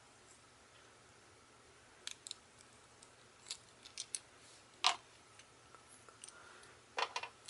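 Small clicks and snaps of a Beyblade Flash Sagittario top's parts being taken apart and refitted by hand while it is switched from tap mode to stamina mode. A few scattered clicks, the loudest about five seconds in, then a quick cluster of clicks near the end.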